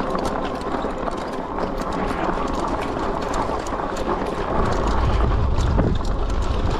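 HeyBike Mars e-bike's fat tyres crunching and rattling over loose, washed-out rock on a steep climb, with many small clicks and knocks from stones and the bike's frame. A low rumble grows louder about halfway through.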